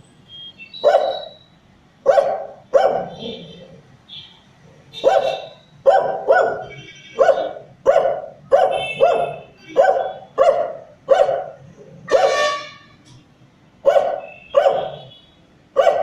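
A dog barking again and again in single barks. They come a second or more apart at first, then about every two-thirds of a second, with one longer, harsher bark about twelve seconds in.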